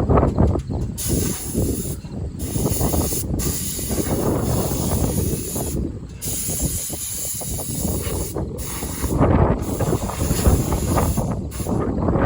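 Compressed air hissing in bursts of a second or several, cutting off and starting again abruptly, as dust is blown off the combine, over a steady low rumble.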